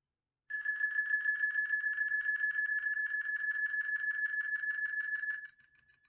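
A steady high-pitched ringing tone with a second, higher tone above it and a fast flutter, played back through a phone's speaker. It starts about half a second in and drops away sharply near the end.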